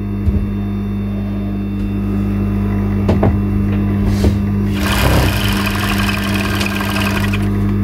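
Overlock sewing machine (serger) with its motor humming steadily; about five seconds in it runs for a couple of seconds, stitching a seam with a fast even patter, then stops.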